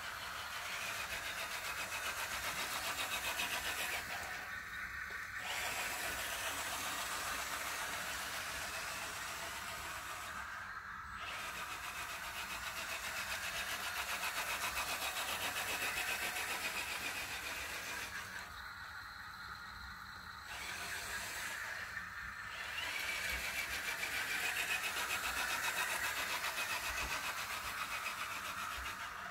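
1:14 scale radio-controlled Mercedes Zetros truck driving on paving stones, its drive whining higher and lower as its speed changes. It goes quiet briefly a few times as the truck stops.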